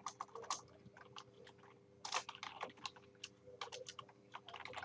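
Typing on a computer keyboard: four short bursts of quick keystrokes with pauses between them.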